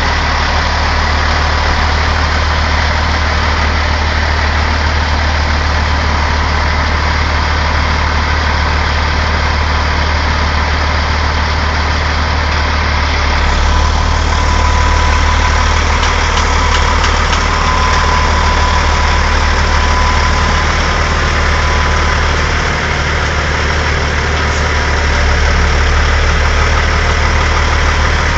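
Semi truck's diesel engine running near idle as the tractor slowly pulls a heavy lowboy trailer forward, a steady low rumble with a thin whine on top; it gets a little louder about halfway through.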